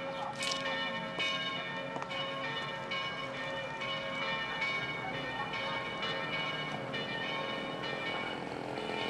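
Church bells pealing, a new strike about every second, each ringing on under the next so the tones overlap.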